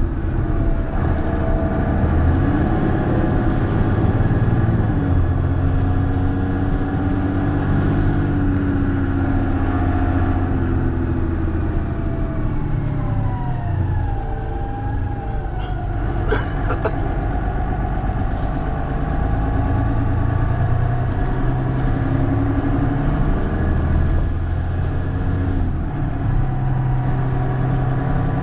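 Mercedes-Benz Citaro city bus heard from on board, its diesel engine and automatic transmission running under way. The pitch rises as the bus accelerates, then falls in a long descending whine as it slows. Two sharp clicks come just past the middle.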